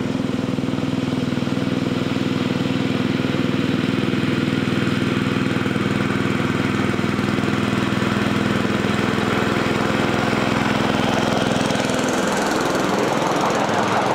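Small petrol engine of a 7¼-inch gauge miniature locomotive with hydrostatic drive, running steadily and loud at high power while hauling a freight train. About twelve seconds in the steady engine note weakens and a rougher noise comes up.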